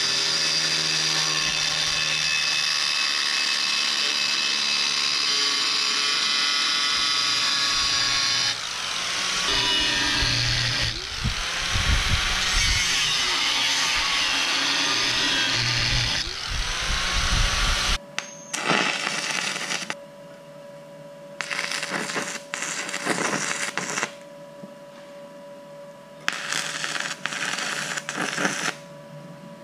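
Angle grinder with a cut-off wheel cutting 10-gauge steel plate: steady at first, then wavering in pitch as the wheel bites. After about 18 seconds it gives way to stick welding, the arc crackling in three separate bursts over a steady hum.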